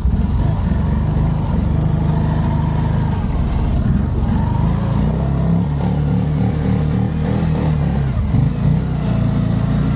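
Quad bike engine running under throttle as it rides, its pitch rising and falling as the throttle opens and eases off.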